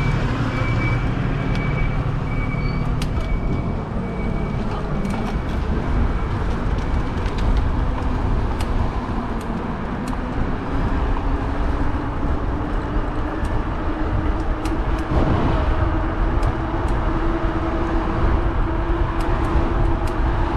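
Street traffic and road noise heard from a moving e-bike, with a hum that slowly rises in pitch from a few seconds in and scattered light clicks.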